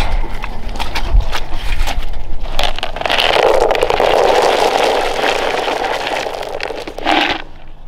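Dry dog kibble poured from a plastic scoop into a rubber feed pan: a loud, steady rattling rush for about four and a half seconds that stops suddenly near the end. Before it come a few clicks and rattles of a metal gate latch.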